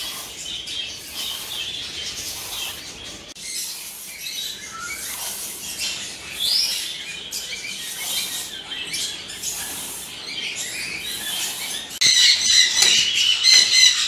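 Many small caged birds chirping and calling, with scattered short chirps at first. About 12 seconds in it becomes a louder, dense chatter of many birds.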